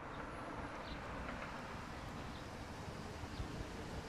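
Steady outdoor background noise from a parking-structure rooftop: a low hum of distant traffic with wind on the microphone, and a few faint short chirps.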